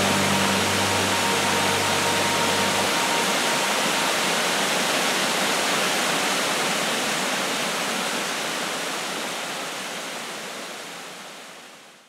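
Steady rush of a tiered waterfall, fading out over the last few seconds. The last held notes of background music die away about three seconds in.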